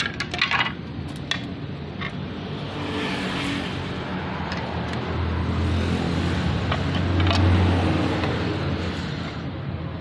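A few sharp clicks and knocks in the first two seconds as carved wooden pieces and a plastic bottle are handled on a concrete floor, over a steady low rumble of a motor vehicle that swells about seven seconds in.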